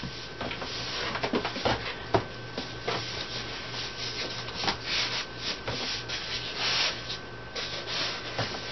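Cardboard box and styrofoam packing scraping and rubbing as a heavy Silhouette Cameo 4 cutting machine is shifted and slid inside its box, with scattered knocks and bumps. Longer rubbing scrapes come about five and seven seconds in.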